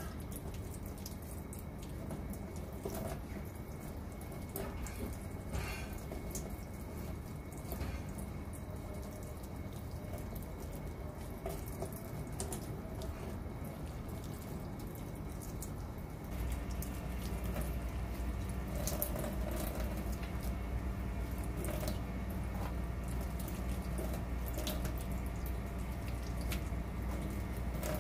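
Tap water running into a stainless steel kitchen sink and over charred grilled eggplants in a metal colander, with small clicks from hands handling and peeling them. About halfway through, the sound steps up louder with a low rumble.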